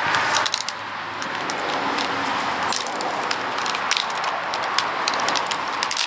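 Continuous rustling with many sharp crackling clicks from two dogs wrestling on grass and chewing and tugging a dry stick.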